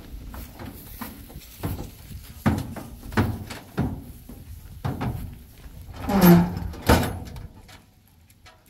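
Irregular knocks and thuds, about half a dozen over several seconds, the loudest about six seconds in.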